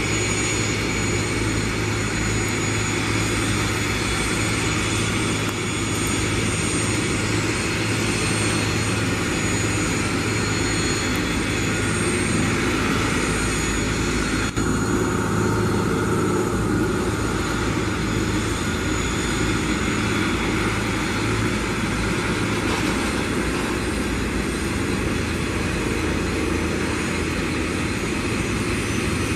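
Twin Garrett TFE731 turbofans of an IAI 1124 Westwind business jet running at taxi power: a steady jet rumble with a high-pitched whine on top and a brief dip about halfway through.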